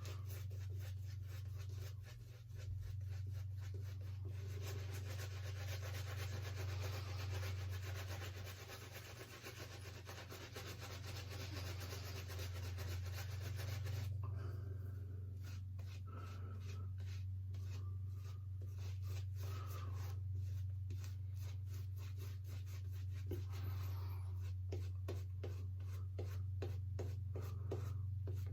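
Badger hair shaving brush scrubbing and swirling soap lather on the face, a continuous fast rubbing of many quick strokes. The lather is being built up and hydrated with added water. A steady low hum runs underneath.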